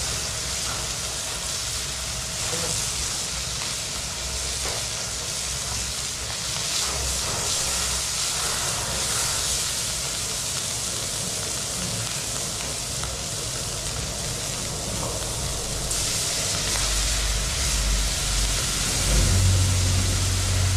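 Potato chunks, chilli, scallion, ginger and garlic stir-frying in hot oil in a wok: a steady sizzle and hiss, the wok on a very hot flame. A low rumble comes in near the end.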